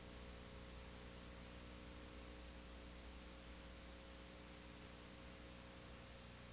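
Near silence: a steady hiss with a low electrical hum underneath.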